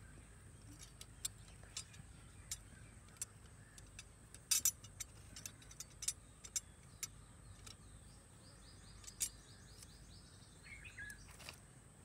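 Scattered light clicks and clinks of steel scissors being handled, a loud double click about four and a half seconds in, over a steady faint high-pitched hum. A few short bird chirps come between about nine and eleven seconds in.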